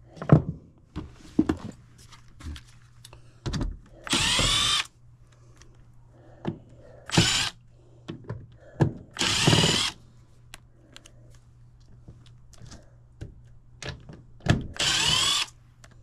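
Cordless drill-driver spinning out panel screws in four short runs of under a second each, its motor whine shifting in pitch, with clicks and knocks of handling between them. The screws are coming out of the air handler's access panel to get at the indoor coil.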